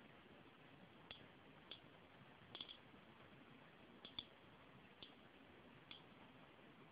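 Geiger counter of a DP-2 radiation detector clicking faintly and at random, about nine clicks, some in quick pairs. Each click is a detected particle from the very slightly radioactive uranium glass held against it.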